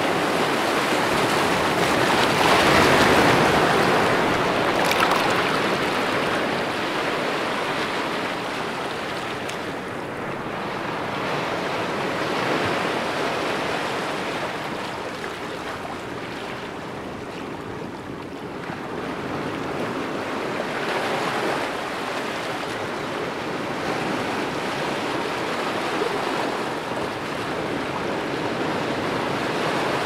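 Ocean surf: waves breaking and washing in as a steady rushing noise that swells and eases every several seconds, loudest about three seconds in.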